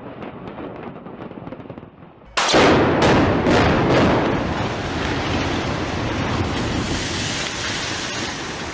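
Wind noise on the microphone, then about two and a half seconds in a sudden run of loud explosive blasts from demolition charges, followed by the long rumble of a building collapsing, slowly fading.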